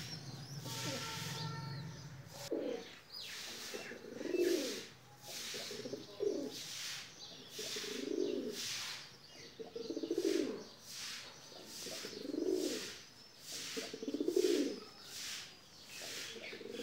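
Domestic pigeons cooing repeatedly, one low coo about every one to two seconds, starting about two and a half seconds in.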